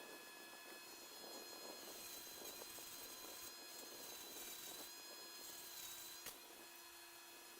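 Faint high whine of a rotary tool fitted with a carbide cylinder burr, grinding into a bone knife handle to inlet a shield. It sets in about two seconds in and cuts off with a sharp click about six seconds in.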